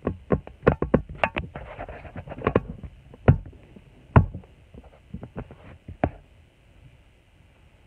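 A run of irregular clicks, taps and knocks from things being handled close by, mixed with a little rustling. They come thickly at first, with single louder knocks about three and four seconds in, and die away after about six seconds.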